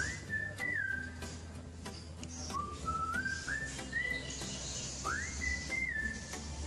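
Background music carried by a whistled melody, short phrases of stepping and sliding notes, over a soft bass and a light ticking beat.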